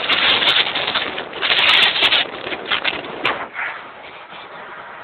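Road and wind noise in a moving car's cabin: a loud, uneven rush with a few sharp clicks, dropping to a lower steady rush about three and a half seconds in.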